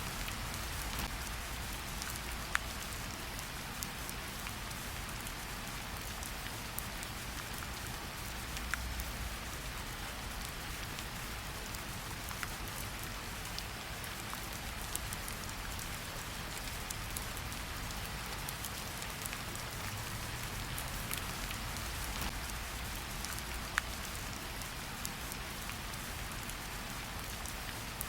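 Steady rainfall with a hiss of many drops and scattered louder single drop ticks, over a low rumble.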